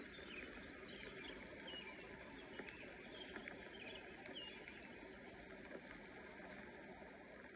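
Faint steady background hiss with a few short, faint chirps scattered through it.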